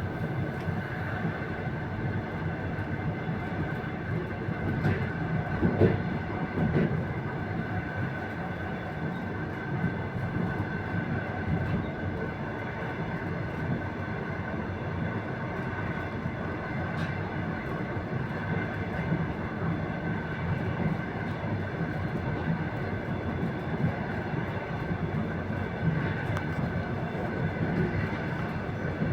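Passenger train running on the rails, heard from inside the car's vestibule: a continuous rumble of wheels on track with a steady high whine, and two louder knocks about six and seven seconds in.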